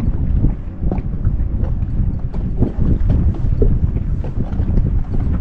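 Wind buffeting the microphone on an open fishing boat, a loud low rumble with irregular small knocks and taps.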